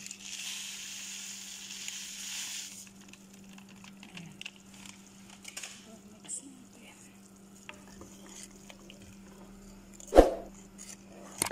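A wooden spoon stirring vegetable soup in an aluminium stockpot, with faint scrapes and clicks and one sharp knock of the spoon against the pot about ten seconds in. It opens with a hissing rush of about three seconds that stops suddenly, as the dry noodle soup mix is tipped in.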